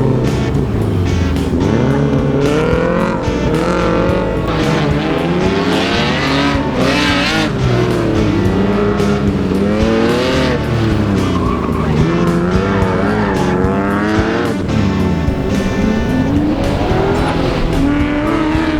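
Background music over racing cars: engines revving and tyres squealing in wavering tones.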